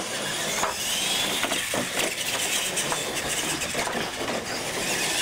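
Radio-controlled monster truck running across asphalt with its motor whining, the pitch gliding up and down, along with tyre noise and knocks as it takes a wooden jump ramp.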